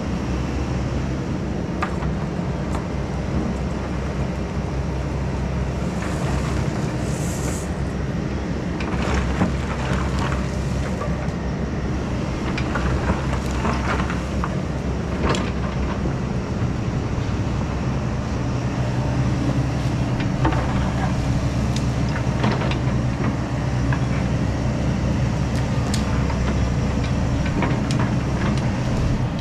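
Takeuchi tracked excavator's diesel engine running steadily under load while its bucket digs and spreads dirt, with scattered clanks and scrapes from the bucket. The engine grows a little louder about twenty seconds in.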